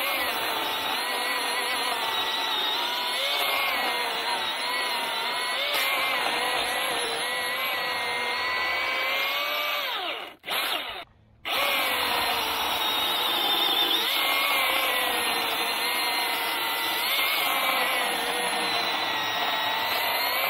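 Milwaukee M18 Fuel battery chainsaw running as it cuts logs to length, its motor whine dipping and wavering as the chain bites. It stops briefly about ten seconds in, then starts again.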